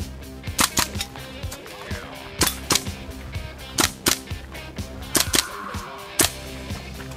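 Airsoft rifle firing a string of shots: sharp, short cracks at an irregular pace, often in quick pairs or threes.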